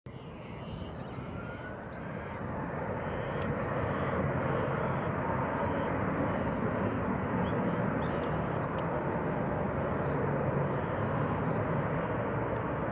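Airbus A330 jet engines spooling up to takeoff thrust: a short rising whine early on over a rumble that swells for a few seconds, then holds steady.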